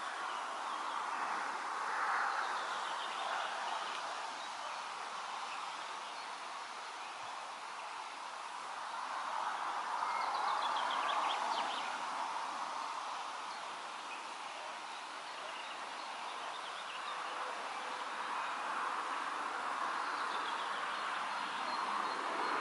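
Wind rustling through foliage, swelling and easing in slow gusts about every nine seconds, with faint high chirping calls in the background.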